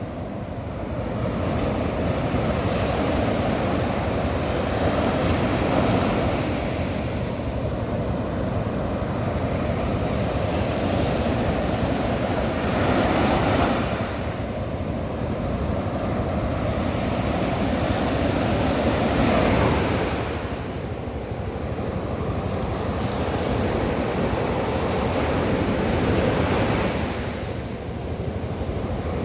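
Sea waves breaking on a beach in a steady wash, a wave cresting louder about every six or seven seconds, with wind rumbling on the microphone.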